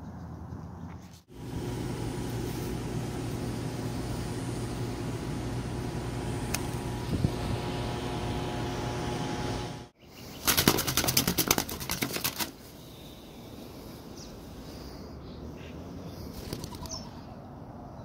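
A steady machine hum, then after a cut about two seconds of loud, rapid wing flapping from a bird trapped in a chimney flue, beating its wings as it is reached for.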